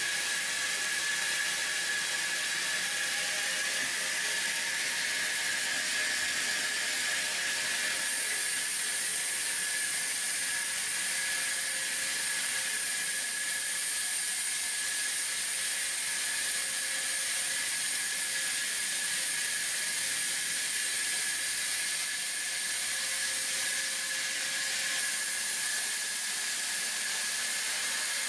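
Vertical band saw running and ripping a timber plank lengthwise as it is pushed along the carriage: a steady high whine over a constant hiss.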